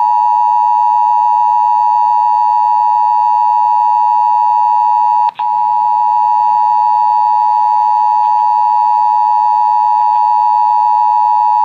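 Emergency Alert System attention signal: the loud, steady two-tone alert tone (853 Hz and 960 Hz) held without a break except for a momentary dropout about five seconds in. It announces an AMBER Alert broadcast over FM radio.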